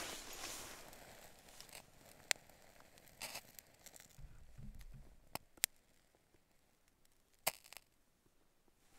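Ferrocerium (ferro) rod struck with a scraper: several faint rasping scrapes and a few sharp clicks, in repeated strikes to light wet tinder.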